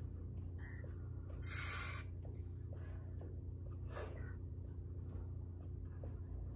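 Quiet sounds of a person doing mountain climbers on a floor rug: a hissing burst about a second and a half in, a shorter one near four seconds, and faint scuffs, over a steady low hum.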